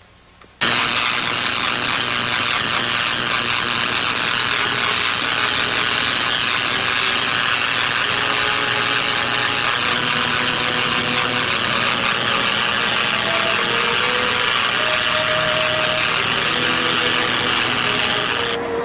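Electric arc crackling and buzzing across a spark gap between two electrode posts: one steady, loud sizzle that starts suddenly just over half a second in and cuts off near the end.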